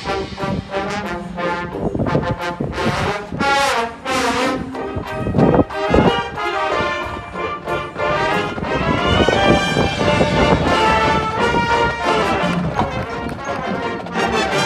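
High school marching band playing, with the brass section out front in sustained chords, and two loud percussion hits about five and a half and six seconds in.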